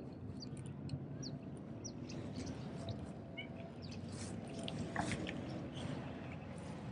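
Small birds chirping in quick, short, high falling notes over a low steady background, with a few soft clicks about two-thirds of the way through.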